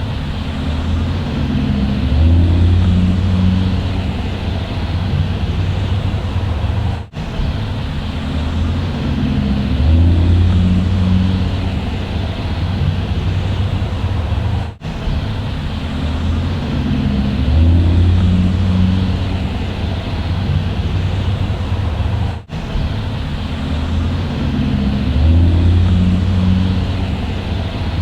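Bus engine running with a steady low drone that swells briefly every few seconds. The same recording loops about every eight seconds, with a short dropout at each joint.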